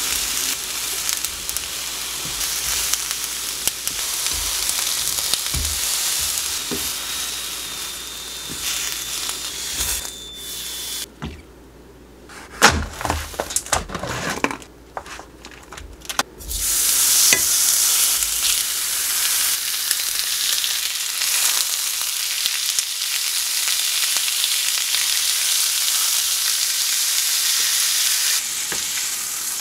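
Food sizzling in a hot frying pan: whole onion, leeks and garlic charring as they are turned with metal tongs. It drops away for a few seconds, with several knocks and clicks as pork belly is taken from its plastic tray, then slabs of pork belly start searing with a loud, steady sizzle a little past halfway.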